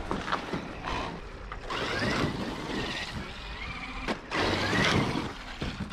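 Traxxas X-Maxx electric RC truck's brushless motor whining, rising in pitch twice as it is throttled up, over a rushing noise of the drivetrain and tyres, with a sharp knock about four seconds in.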